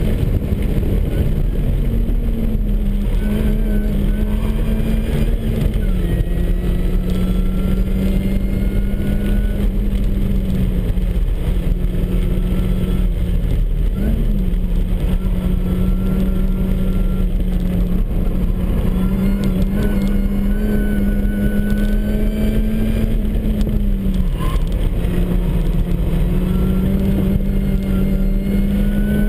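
MINI Cooper S's supercharged four-cylinder engine running hard through a lapping session, with steady road and wind noise. The engine note drops in pitch about six seconds in and again near the end, and rises briefly about halfway through.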